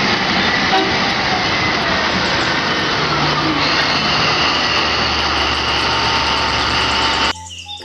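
Caterpillar 785C mining haul truck's diesel engine running as the truck drives up close, a dense, loud engine noise with a low steady hum that cuts off suddenly near the end.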